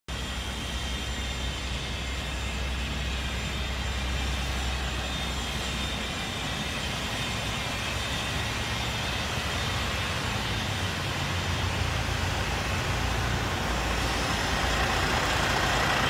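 Semi-trucks and cars idling in stopped traffic: a steady low engine rumble under an even wash of traffic noise.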